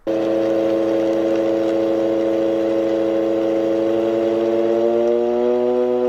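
Blender motor running at speed, churning a thick smoothie: a steady hum whose pitch rises slightly about five seconds in.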